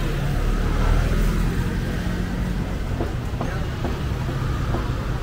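Low, steady engine rumble of a motor vehicle close by, swelling about a second in, over general street noise.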